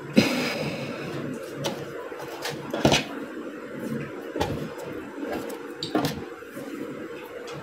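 Hands handling a gathered tulle sleeve and paper pattern on a table: soft rustling with about four sharp bumps or knocks, one near the start and one about three seconds in the loudest.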